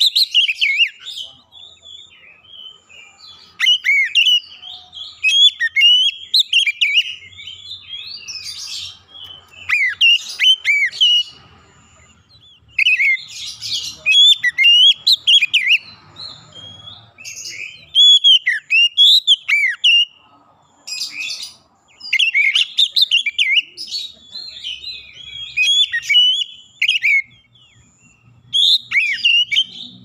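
Male Oriental magpie-robin singing: loud, varied phrases of quickly rising and falling whistles and chattering notes, each burst lasting one to three seconds with short pauses between.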